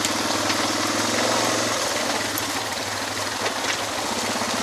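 Suzuki DR650's single-cylinder four-stroke engine running at low revs with a steady, even pulse. Its note drops a little under two seconds in.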